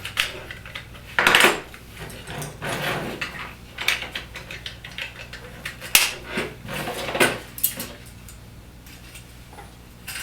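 Irregular clicks and rattles of a vertical blind headrail's small hard parts being handled, as the worn sprocket is slid out and a new one fitted. The handling is busiest in the first seven seconds and eases off near the end.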